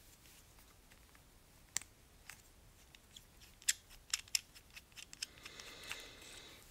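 A few light, sharp clicks and taps, scattered irregularly, of a small black Revival Cycles three-button handlebar switch housing and its buttons being handled and pushed together by hand.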